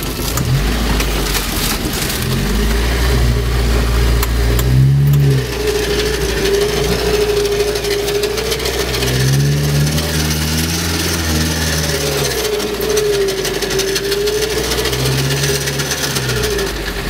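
Off-road 4x4's engine revving up and falling back several times as it drives through deep water and out onto the bank, with a steady wavering whine above it and water splashing against the body.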